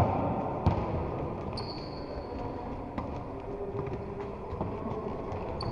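Indoor football game noise in a hall: a steady din with a couple of sharp knocks, one just under a second in and one about three seconds in.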